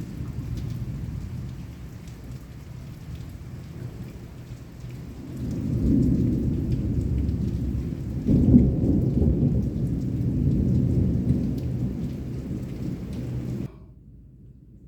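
Heavy rain with rolling thunder: a low rumble under a patter of raindrops, swelling about halfway through and loudest a little after, then cut off suddenly near the end.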